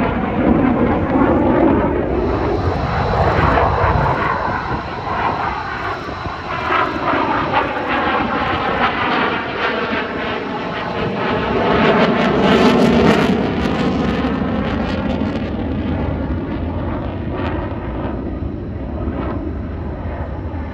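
Fighter jet engine noise from a jet flying overhead, a continuous rushing roar whose tone sweeps slowly up and down as the aircraft passes. It swells to its loudest about twelve seconds in, then eases off.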